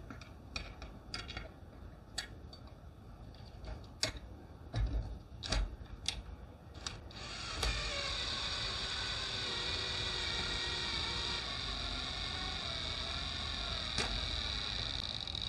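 Sharp metal clicks and a few knocks as the homemade rivet-nut tool is handled. About halfway through, a drill starts and runs steadily with a whine that wavers slightly in pitch, turning the bolt to draw up a rivet nut in a steel bracket.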